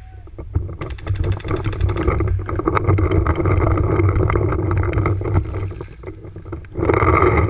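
Paintball markers firing, with a rapid string of shots about a second in and scattered shots after, over a steady low rumble of wind and handling noise on the gun-mounted camera's microphone as the player moves. A louder noisy burst comes near the end.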